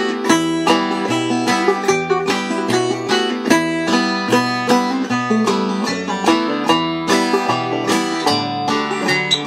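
Mid-1970s Vega-Martin VIP five-string banjo played clawhammer style in standard G tuning (gDGBD): a steady, driving run of bright plucked notes through an old-time fiddle tune in E minor.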